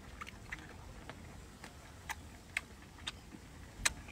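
Close-up mouth sounds of a man chewing seafood: short wet clicks and smacks, roughly one every half second at an uneven pace, the loudest near the end.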